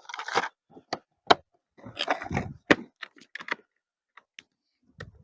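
Small campfire of birch bark and twigs crackling, with scattered sharp cracks and pops, and brief rustling of handling near the start and about two seconds in.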